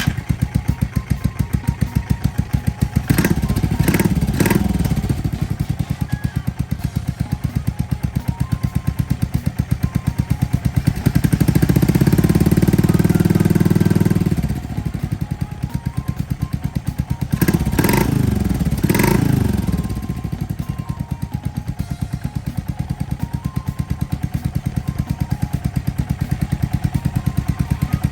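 Yamaha SR400's air-cooled single-cylinder four-stroke engine idling with an even beat, revved in two quick blips a few seconds in, held at higher revs for about three seconds near the middle, then blipped twice more before settling back to idle.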